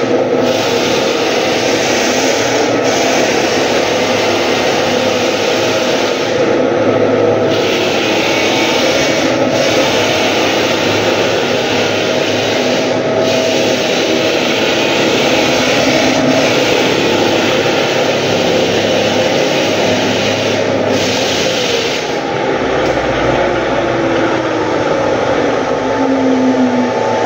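Walk-behind drum floor sander running, its motor and sanding drum grinding across a wooden floor with a steady, loud noise.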